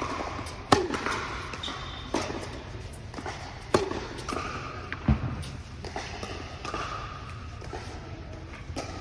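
Tennis rally on an indoor hard court: sharp pops of the ball off the racket strings and its bounces on the court, every second or two, thinning out in the second half.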